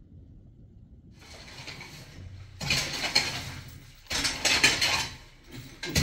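A shovel scraping through loose rubble and gravel, with stones clattering, in two loud spells of about a second each.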